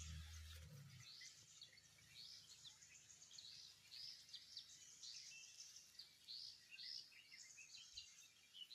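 Faint outdoor birdsong: short, arched, high chirps repeated one or two times a second over a quiet background hiss.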